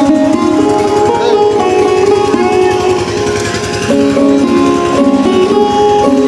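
Background instrumental music with a plucked string melody.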